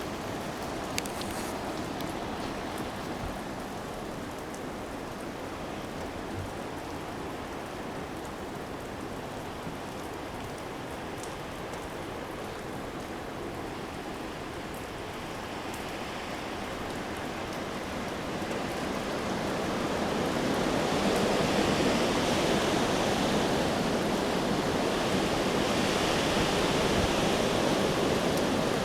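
Steady rush of wind and rain in a coastal storm, growing louder about two-thirds of the way through.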